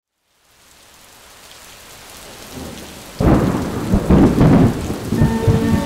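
Steady rain fading in, then a sudden loud clap of thunder about three seconds in that rolls on for a couple of seconds. Near the end, held music tones begin under the rain.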